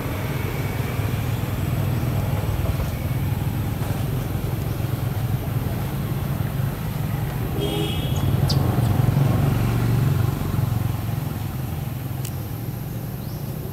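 A steady low rumble of a running motor vehicle's engine, getting louder about eight seconds in and easing off near the end. A brief high squeak comes just before the rumble swells.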